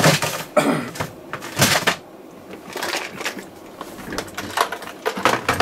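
Hands rummaging through small electronic components in storage, searching for a capacitor. There are several louder rattling, scraping strokes in the first two seconds, then lighter scattered clicks.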